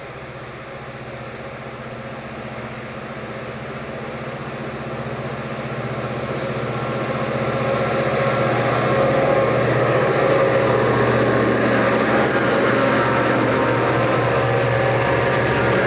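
Reading & Northern EMD diesel locomotives approaching and passing close by. Their engine drone grows steadily louder over the first eight or nine seconds, then holds steady as the units go by.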